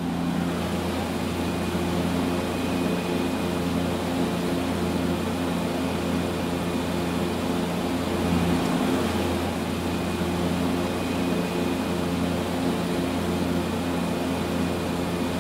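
Cabin drone of a de Havilland Canada DHC-6 Twin Otter in flight on approach: its two turboprop engines and propellers give a steady low hum with a faint high whine over a rush of air.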